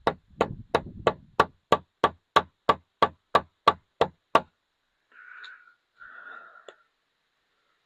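A bottle of thick cutting compound being knocked about three times a second to drive the compound down to the cap, about fourteen sharp knocks. Two short, fainter sounds follow in the second half.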